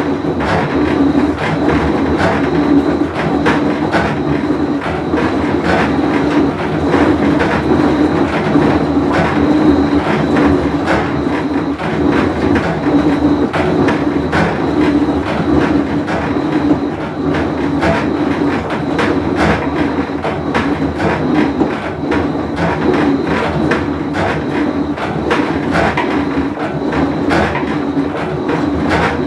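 Whirlpool Cabrio top-load washer running with a loud, steady rattling noise made of dense clicks, continuous throughout: the sound of a bad tub bearing.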